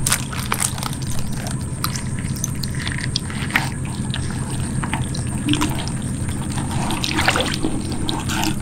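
Water splashing and dripping as a loach trap is handled and emptied, with scattered small knocks and clicks. A steady low hum runs underneath.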